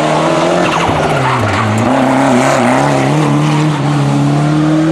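Ford Sierra Cosworth Group A rally car's turbocharged YB four-cylinder engine at full throttle. Its pitch dips briefly about a second and a half in, then climbs steadily as the car accelerates away.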